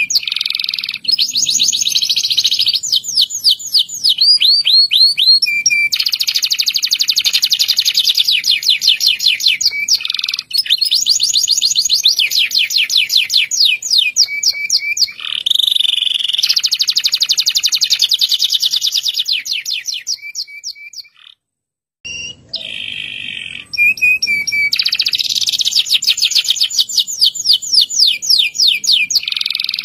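Domestic canary singing a long rolling song of fast repeated trills, phrase after phrase, with one short pause about two-thirds through.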